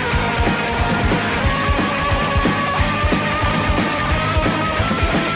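Loud rock song with a steady drum beat, from a rock radio show.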